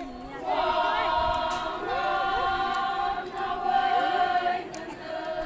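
A group of women singing a Konyak Naga chant in unison, unaccompanied, holding long high notes in phrases of about a second each with short breaks between them.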